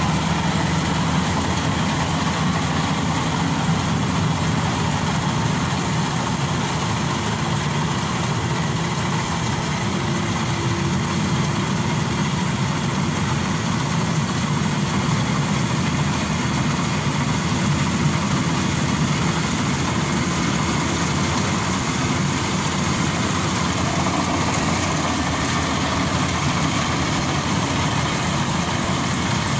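Maxxi Bimo Evo Xtreme rice combine harvester running steadily as it cuts standing rice: a continuous, unbroken mechanical din from its engine and machinery.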